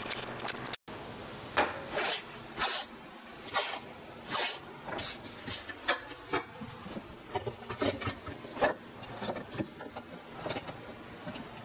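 Blue painter's tape pulled off the roll in short, irregular rips and rubbed down along wooden boards, with a few clinks of steel pipe clamps being handled in the later part.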